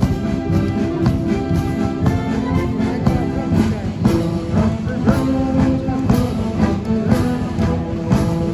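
Military brass band playing in the open air: held brass chords over a steady drum beat of about two beats a second.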